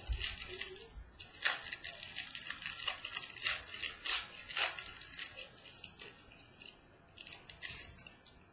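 Trading cards and their packaging being handled: irregular crinkling rustles, small clicks and scrapes, busier in the first half and thinning out toward the end.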